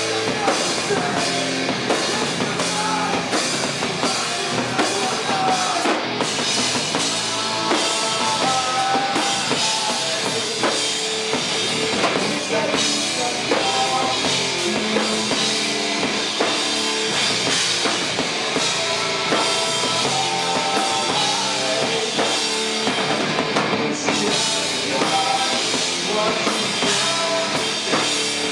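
Live rock band playing loud: a drum kit with bass drum, and distorted electric guitars through amplifiers.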